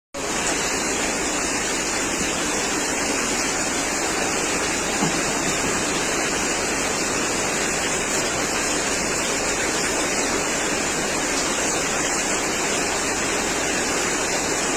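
Heavy rain pouring down, a steady, even rushing hiss.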